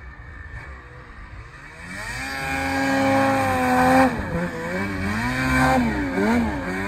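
Snowmobile engine, faint at first, then climbing in pitch and swelling loud as the sled comes close. Its revs then dip and rise again several times as the rider carves through deep powder.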